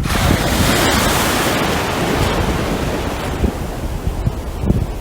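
Ocean wave breaking and washing up the shore, a loud hiss that surges at the start and fades away over about three seconds. Wind rumbles on the microphone underneath.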